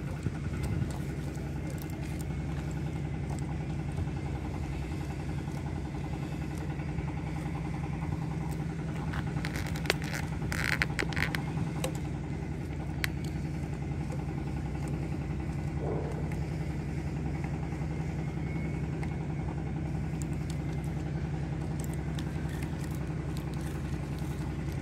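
An engine running steadily at idle, a constant low drone.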